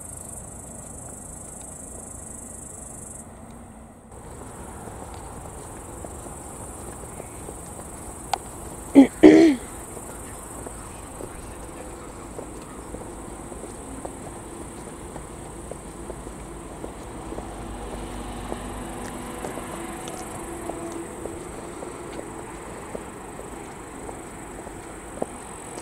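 Crickets chirring in a steady high-pitched drone over low outdoor background noise. Two short loud sounds come close together about nine seconds in.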